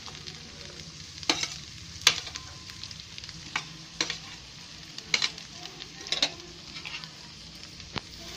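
Onion and bell pepper sizzling in hot oil in a metal kadhai while shredded cabbage is scraped into it with a spatula. A steady frying hiss, with about seven sharp clicks and knocks of the spatula at irregular intervals.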